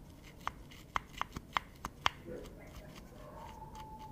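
Roller-bearing rocker arm from a Bajaj Pulsar 150 cylinder head turned by hand. Its worn roller bearing gives about seven sharp, uneven metallic clicks in under two seconds. This noise from the worn rocker roller causes the engine's 'khat khat' ticking.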